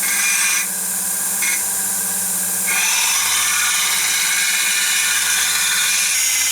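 A steady machine hum with a broad hiss, its tone shifting a couple of times.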